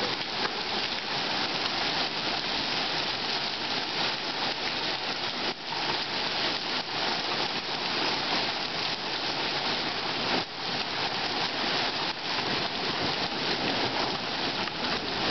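Steady rain falling and pattering; the hail has stopped and only rain is left.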